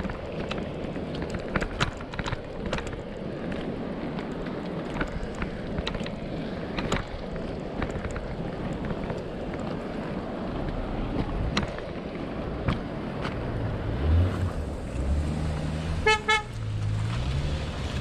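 Wind and rolling noise of a bicycle riding a rough dirt road, with scattered clicks and knocks. Near the end a motor vehicle's engine comes close, and about two seconds before the end its horn gives one short toot.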